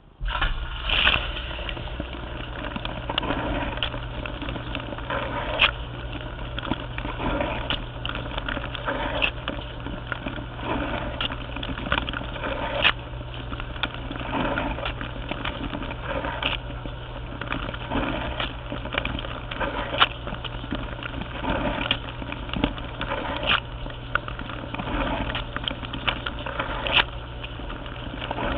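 Dishwasher running, heard from inside its closed tub: the wash pump starts abruptly and then hums steadily while water sprays and splashes over the racks and the camera, with frequent sharp spatters of water hitting it.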